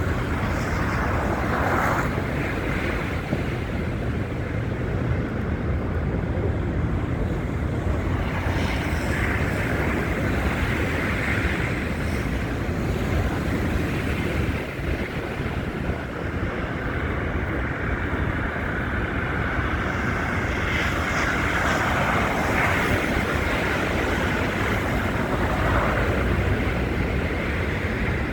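Steady rumble of wind buffeting a phone's microphone in a snowstorm, with a few brief louder swells.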